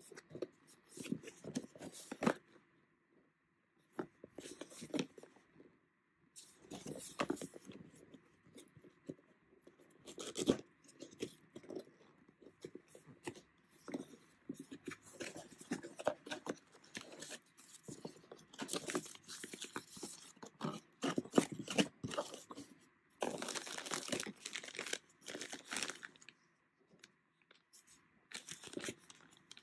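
Cardboard packaging of a Sony ZV-E10 camera box being handled and opened by hand: intermittent bursts of scraping, rustling and tearing as flaps are pulled open. Near the end a plastic bag crinkles as an accessory is lifted out.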